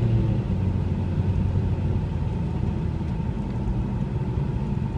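Car cabin noise while driving: a steady low engine and road rumble.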